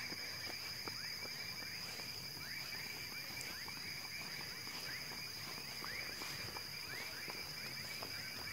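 Faint animal chorus at night: many short falling chirps repeating several times a second over a steady high-pitched hum.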